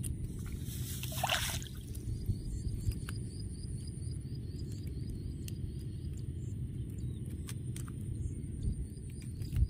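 Hands disentangling a crab from a nylon fishing net in shallow water: soft rustling of net and wet grass, with a brief swish about a second in and scattered small clicks, over a steady low rumble.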